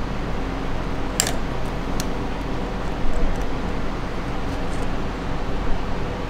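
Snap ring pliers spreading a steel snap ring and working it over the teeth in an NSG370 manual transmission: a few small metallic clicks, the sharpest about a second in and another near two seconds, over a steady background hiss.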